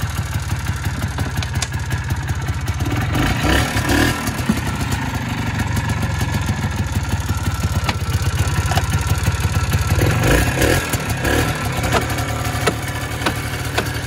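Polaris Trail Boss 250 ATV engine running as the quad backs up in reverse, with repeated boom-like clunks from the transmission, as if something is not fully in gear and then catches. The owner suspects a broken gear tooth in the transmission.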